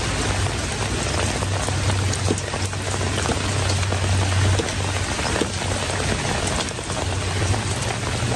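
Steady rain falling, with scattered drops ticking close by, over a low steady hum.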